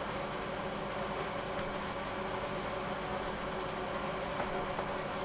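A steady mechanical hum, even in level throughout, with a few faint light ticks.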